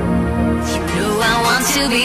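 Radio station imaging music: held chords, then about halfway through a sweeping whoosh into a new section of wavering melodic lines.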